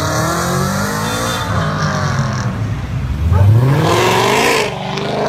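Performance car engines revving hard, their pitch sweeping up and down with a sharp climb about three seconds in, and a brief tyre squeal about four seconds in as a car is swung round.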